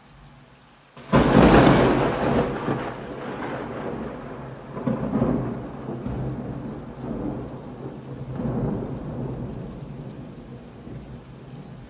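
A close thunderclap following a lightning flash: about a second in a sudden sharp crack, then a long rumble that swells twice more and slowly fades, over heavy rain.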